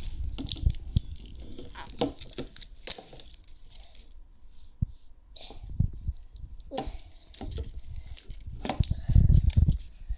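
Toy packaging being torn open and crinkled by hand, with irregular rustles and clicks and a run of heavy bumps about 9 seconds in.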